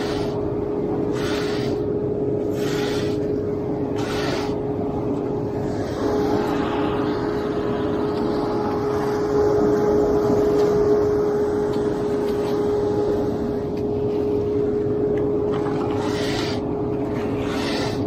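A long metal hand float scraping over wet concrete in strokes about every second and a half, pausing for most of the middle and starting again near the end. A steady engine hum with a constant tone runs underneath throughout.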